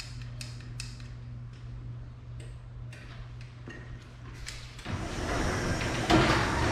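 Clock-like ticking that fades out in the first second over a steady low hum; about five seconds in, a ceiling-mounted garage door opener starts and runs loudly and steadily, set going by a freshly programmed remote.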